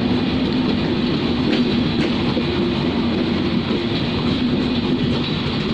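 Bangladesh Railway passenger coaches rolling past close by. The wheels give a steady rumble on the rails, with a few faint clicks from rail joints and a steady hum underneath.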